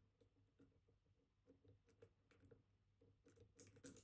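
Faint, scattered ticks and light scraping of a dimple pick working the pins of a Kaba Titan Combi high-security dimple lock, with a quicker run of small clicks near the end.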